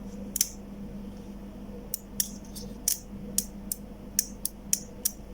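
A faulty 24 V DC relay from a refrigerator's electronic thermostat board clicking under applied power: one click about half a second in, then a run of sharp irregular clicks about three a second from about two seconds in. The relay is making sound but not making its connection, so it is bad.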